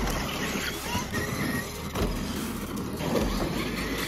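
Traxxas electric RC monster truck driving fast over dirt, its brushless motor whining in short rising and falling glides.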